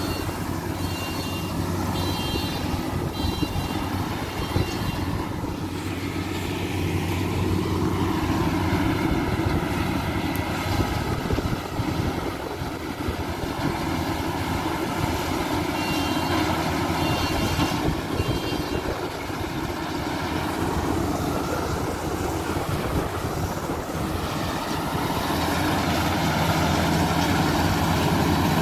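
Rice combine harvester running steadily as it cuts through standing rice, growing louder near the end as it comes closer.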